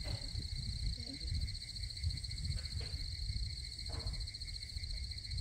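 Steady chorus of night insects, a high, finely pulsing trill that never stops, over a continuous low rumble, with a few faint clicks.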